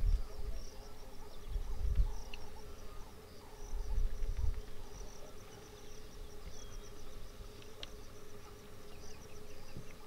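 Outdoor ambience of insects chirring in fast, evenly repeated high pulses over a steady low hum. A few low rumbles, the loudest sounds, come at the start and about two and four seconds in.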